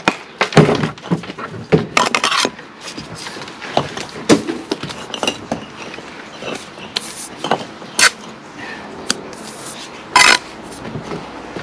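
Steel bricklaying trowel scraping and clinking on concrete blocks and the mortar board as mortar is picked up and spread, with irregular sharp knocks.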